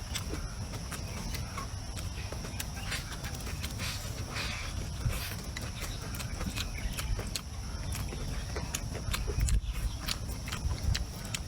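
Eating sounds: many short, irregular clicks and crunches of chewing and chopsticks, over a low rumble and a steady high-pitched hum.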